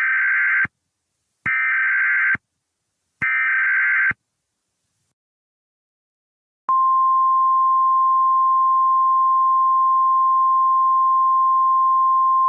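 Emergency Alert System signal. It opens with three short, screechy bursts of SAME header data, about a second apart, which mark the start of a new alert. After a pause of about two and a half seconds, a steady single-pitch attention tone begins and holds.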